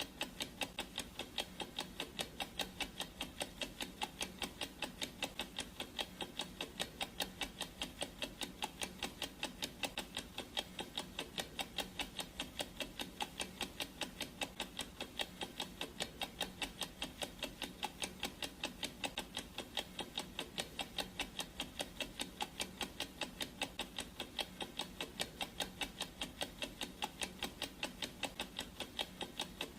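Clock ticking sound effect: steady, evenly spaced ticks.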